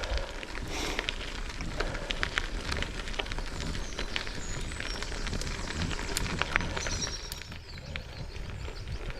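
Goodyear Connector gravel tyres rolling over gravel on a moving bike: a continuous crunching crackle with many small sharp clicks of stones, over the low rumble of wind on the microphone.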